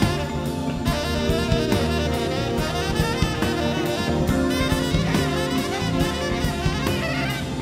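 Tenor saxophone playing a jazz solo in a live band, over electric bass and drum kit.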